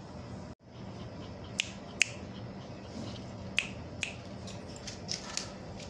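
A handful of short, sharp clicks, spaced a second or more apart, over a steady low hum.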